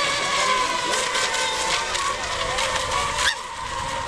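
Several electric racing model boats running at speed, a steady high motor-and-propeller whine with lower tones wavering in pitch as the boats turn. The level drops suddenly about three seconds in.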